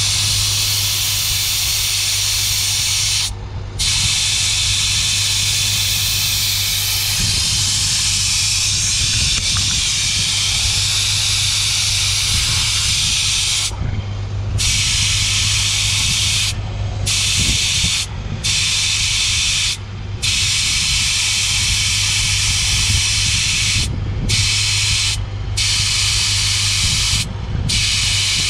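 Air hissing out of a car tyre through a dial-gauge tyre deflator clamped on the valve stem, lowering the pressure for off-road driving. The steady hiss cuts off briefly about eight times as the bleed valve is closed and reopened.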